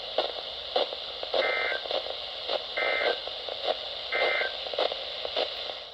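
Emergency Alert System end-of-message data bursts: three short, identical two-tone digital squawks about a second and a half apart. They signal the end of the alert. They play over the hiss and crackling static of a radio receiver.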